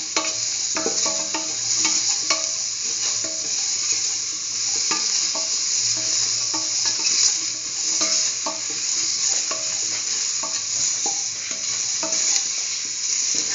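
Chayote, onion and shallot pieces sizzling in oil in a stainless steel pot while they are stirred: a steady frying hiss with repeated scrapes and clinks of the utensil against the pot.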